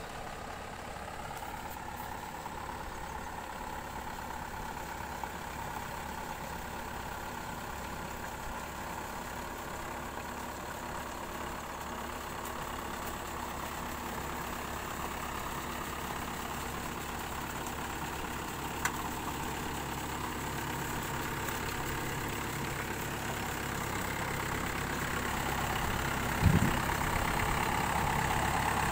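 Mahindra 595 Turbo tractor's four-cylinder diesel engine running steadily under load as it pulls a leveling board through a flooded paddy field. It grows gradually louder, with a single low thump near the end.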